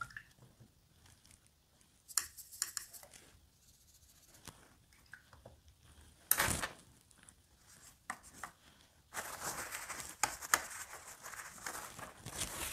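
Faint scratchy rubbing and light taps of a watercolour brush working paint on the palette and paper. The sounds come in short scattered strokes, with a louder rasp about six seconds in, and become a steadier scratchy rubbing from about nine seconds in.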